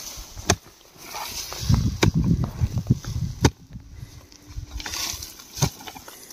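Short-handled hoe chopping into dry earth while digging open an animal burrow: about four sharp strikes roughly a second and a half apart, with loose soil scraping and crumbling after the second.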